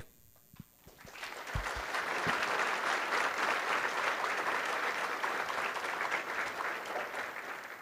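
Conference audience applauding: many hands clapping, swelling about a second in, holding steady and tapering off near the end.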